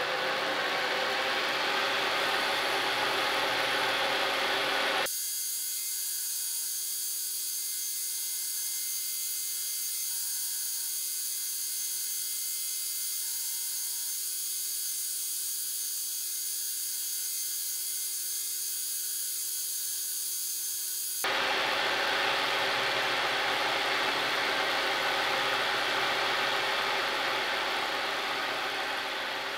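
Milling machine spindle running as a small end mill cuts a slot in a block of purple hardwood, a steady whirring cutting noise. About five seconds in, the sound switches abruptly to a thinner, higher whine of steady tones with no low end for about sixteen seconds, then cuts back to the full cutting noise.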